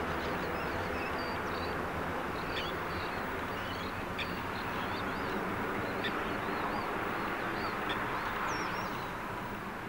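Qantas Airbus A330-300's jet engines heard from the ground as it climbs away after takeoff: a steady rumble that starts to fade near the end. Small birds chirp over it.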